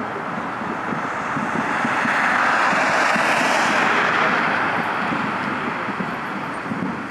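Jet aircraft passing close by: a loud roar that swells to a peak a few seconds in, then fades, its pitch sliding down as it passes.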